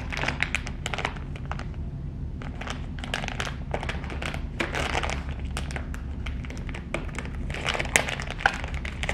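Plastic packaging of disposable face masks crinkling and crackling in repeated bursts as it is handled and opened, over a steady low hum.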